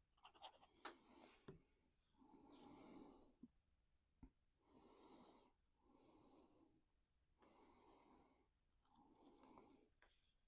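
Faint breathing close to the microphone: five soft breaths, in and out, about one every second and a half. A few light ticks of paper being handled come in the first couple of seconds.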